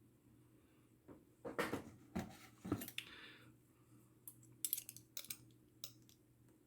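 A padlock's small metal parts and hand tools being handled during reassembly, clinking and clicking. There is a cluster of sharp clicks about a second and a half in, one ringing briefly, then a quicker run of light clicks near the end.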